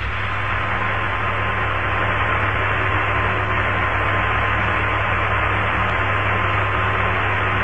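Steady radio static hiss on the Apollo 11 air-to-ground voice link while the channel is open with nobody talking, with a thin steady tone and a low hum under it.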